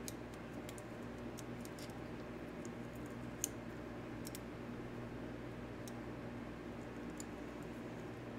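Sparse light clicks and taps of small metal parts and a Torx screwdriver as a Civivi Vision FG folding knife's pivot side is worked back together, with one sharper click about three and a half seconds in. A steady low hum runs underneath.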